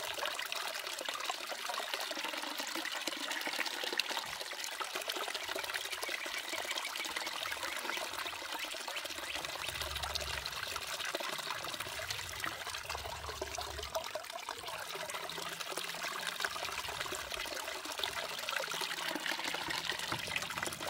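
Water trickling steadily down a small gold sluice box as wet paydirt is poured into its head from a plastic gold pan.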